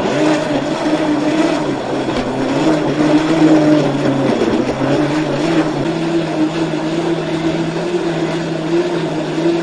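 High-powered countertop blender switched on abruptly and running at full speed, blending a packed jug of greens and berries into a smoothie. The motor's steady pitch dips and then settles slightly higher about halfway through.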